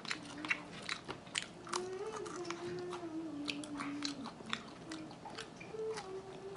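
Close-miked eating of air-fried chicken wings: chewing and biting with many sharp wet mouth clicks. A long wavering hummed 'mmm' starts about two seconds in and lasts about two and a half seconds, and comes again briefly near the end.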